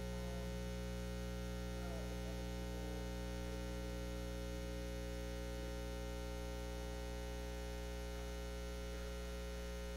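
Steady electrical mains hum with a stack of harmonics at a low, even level.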